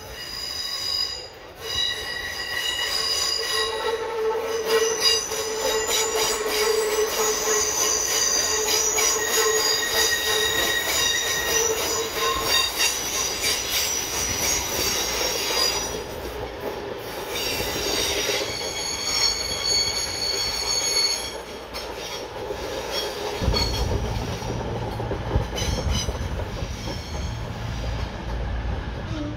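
Train wheels squealing against the rails as a train moves through the station, with several high-pitched squeal tones held over a rolling noise. A low rumble joins about three-quarters of the way through.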